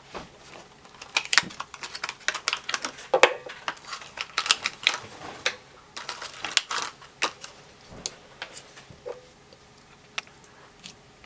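A run of irregular sharp clicks and taps, dense for about the first seven seconds and then sparser.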